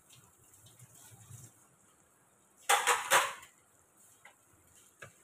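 Kitchen utensils and cookware clattering: three sharp clanks in quick succession about three seconds in, with a few faint ticks after.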